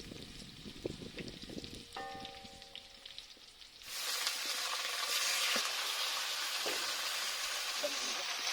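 Duck curry frying in a hot pan, with a low sizzle and a few utensil clicks at first. About four seconds in, a much louder, steady sizzle starts suddenly.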